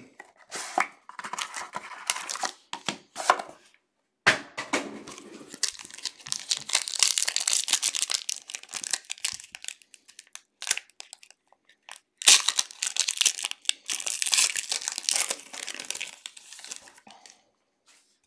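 Plastic wrapper being torn and crinkled off a sealed box of football trading cards, in several bursts with short pauses and a few sharp snaps.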